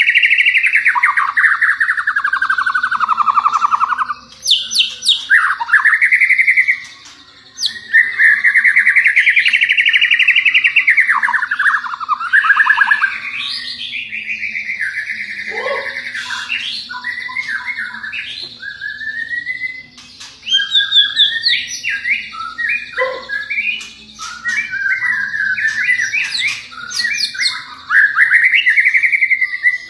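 White-rumped shama singing: long rippling warbled phrases that sweep up and down in pitch, broken by sharp chips and short whistled notes.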